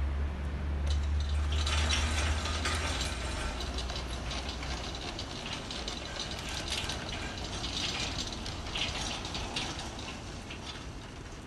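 Centurion D5 Smart sliding gate motor driving a 6 m steel-frame gate along its track: a continuous mechanical rattle of gear rack and rolling wheels, full of small clicks. It grows quieter toward the end.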